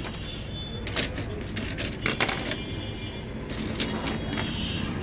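A few scattered clicks and knocks of a circuit board and tools being handled on a workbench, over a steady low background rumble.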